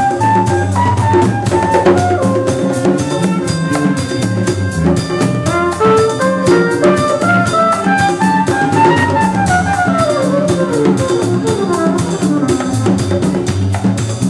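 Live samba-jazz band: two trumpets play the melody over a busy drum kit groove. About nine seconds in the melody climbs and then runs down in a long descending line.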